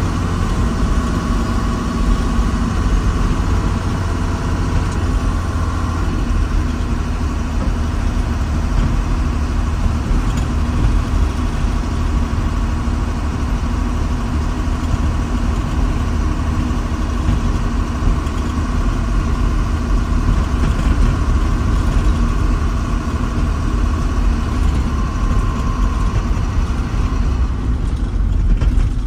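Diesel engine of heavy earthmoving equipment running steadily, with a strong low rumble. A steady whine over it stops near the end.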